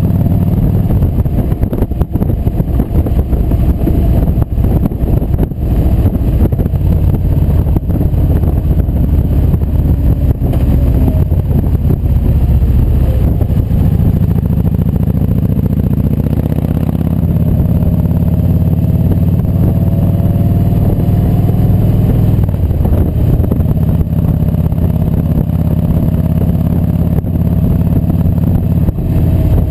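Kawasaki Vulcan Voyager VN1700's V-twin engine running at steady cruising speed, with wind buffeting the microphone throughout.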